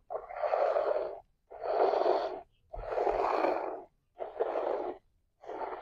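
Goat being hand-milked: a hissing squirt of milk with each squeeze of the teat, about five in a steady rhythm of roughly one a second.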